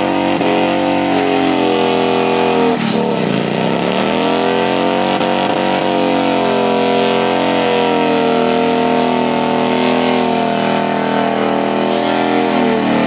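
Cruiser motorcycle doing a stationary burnout: the engine held at high revs while the rear tyre spins on the pavement. The revs drop once about three seconds in and climb back, with a smaller dip near the end.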